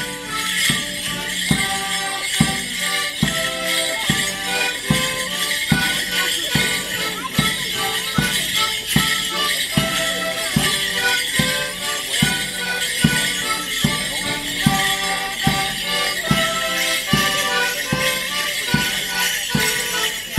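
Live morris dance tune on fiddle and accordion over a steady drum beat, with the dancers' leg bells jingling in time to their steps.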